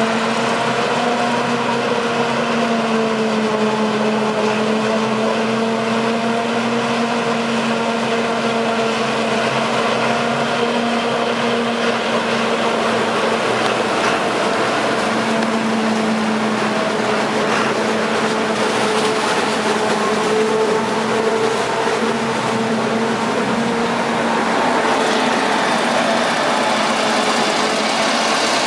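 Claas Jaguar 970 self-propelled forage harvester chopping maize, with a steady machine drone carrying a held whine whose pitch wavers slightly, and a tractor hauling a silage dumper trailer running alongside it.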